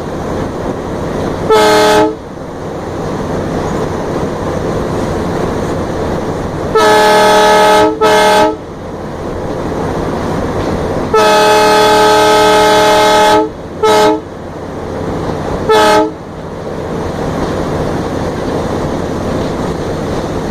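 Diesel locomotive horn sounding, heard from on board: a short blast about two seconds in, two blasts close together around seven to eight seconds, a long blast of about two seconds, then two short toots. Between the blasts the locomotive's steady running noise continues.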